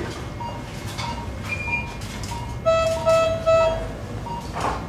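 Hospital ambience: short electronic equipment beeps repeating about every two-thirds of a second over a low hum, with three louder, lower beeps in a row about three seconds in. A knock sounds near the end.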